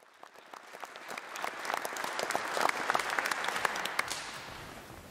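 Audience applauding, the clapping swelling over the first few seconds and dying away near the end.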